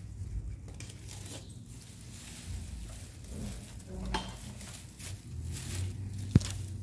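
Pruning shears snipping old fern fronds, with leaves rustling as they are handled: a few faint clicks, then one sharp click near the end.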